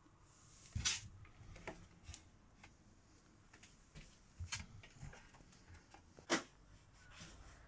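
Wooden overhead cupboard in a campervan being opened and handled: a few sharp clicks and knocks from the latch and door, the loudest about a second in and another just after six seconds.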